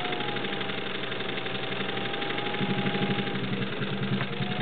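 A Singer 15-91 sewing machine's potted direct-drive motor runs at speed as the machine stitches forward and in reverse. The motor's whine dips in pitch briefly near the end, and the rhythmic clatter of the stitching mechanism grows louder about halfway through.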